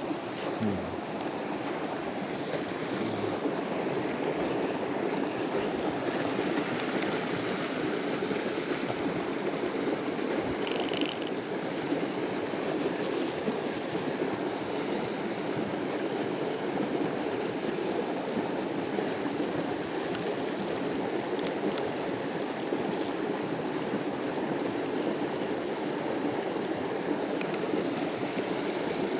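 Steady rush of flowing creek water, even and unbroken, with a brief faint high sound about eleven seconds in.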